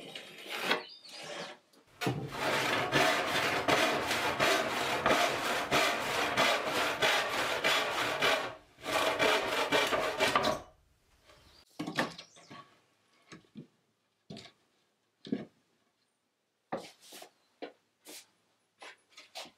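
Handsaw cutting through a wooden board with rapid, even strokes for about eight seconds, with one short pause partway through. A light scratching comes before it, and scattered wooden knocks and clicks follow it.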